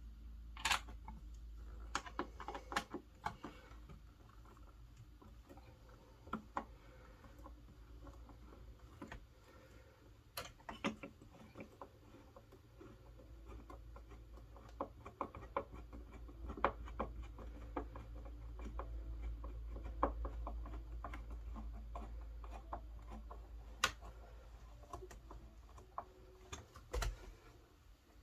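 Scattered small clicks, taps and knocks of hands handling curtain rod hardware, irregular throughout, over a steady low rumble.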